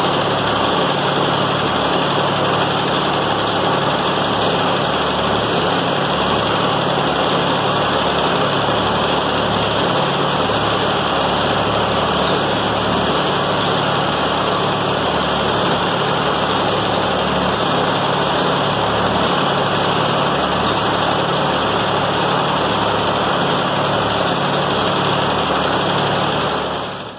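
Allis-Chalmers CA tractor's four-cylinder engine running steadily at idle, driving the hydraulic pump as the lift is worked.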